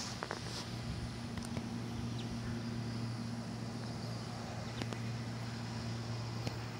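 Steady low mechanical hum with a fainter higher tone above it, like outdoor machinery running, with a few faint taps scattered over it.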